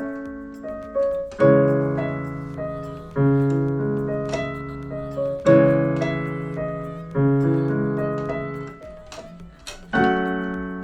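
Casio CTK-5000 electronic keyboard playing a slow melody over chords, each note struck sharply and then fading, picked up by a GoPro Hero 11's built-in microphones.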